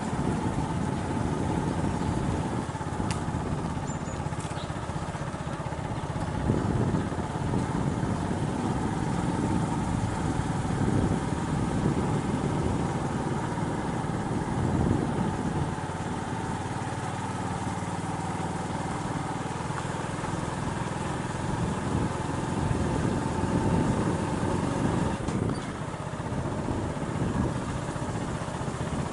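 Engine of a moving vehicle, likely a motorcycle, running steadily along the road, heard from on board with churning low rumble.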